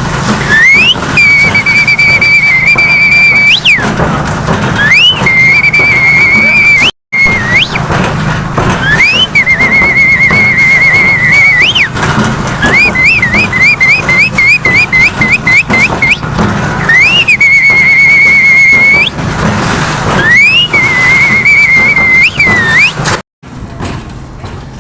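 Loud whistling: repeated glides up into held, wavering high notes, with a run of about a dozen quick rising chirps in the middle, over a steady low hum. The sound cuts out completely for an instant twice.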